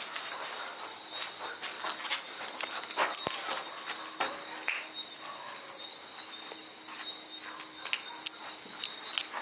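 Crickets chirping steadily at night, a continuous high trill, with scattered scuffs and taps of footsteps and clambering on concrete.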